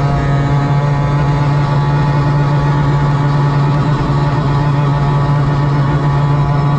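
Mercury F1 race outboard, a V6 two-stroke, running flat out at a steady high pitch under an F1 tunnel-hull powerboat at racing speed, heard from the cockpit over the rush of wind and water.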